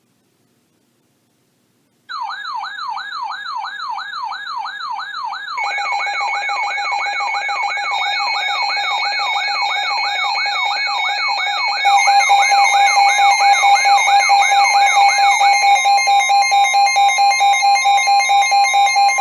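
Electronic emergency-alert alarm tones: a wailing siren tone sweeping up and down about two and a half times a second, joined after a few seconds by steady pulsing alarm tones that grow louder. Near the end the wailing stops and only the steady tones remain.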